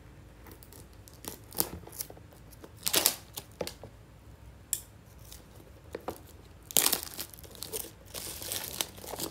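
Clear plastic shrink-wrap being torn and pulled off a cardboard box: a few scattered sharp crackles, then denser crinkling for the last couple of seconds.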